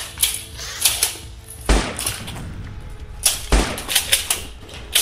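Toy foam-dart blasters firing: about nine sharp shots, irregularly spaced and coming faster from about three seconds in. Two of them, near two seconds and three and a half seconds in, carry a heavy low thump.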